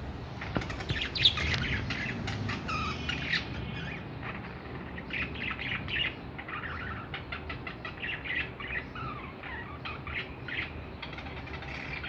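Several caged budgerigars chattering together: a busy, continuous stream of short chirps and warbling notes.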